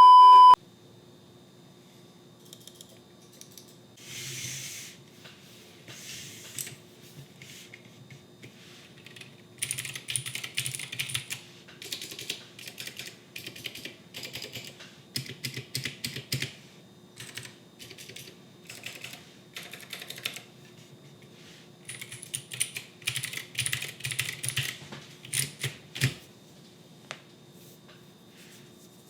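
Typing on an RK68 wireless mechanical keyboard: quick runs of clicking keystrokes in bursts, with short pauses between them. A brief, loud beep sounds right at the start.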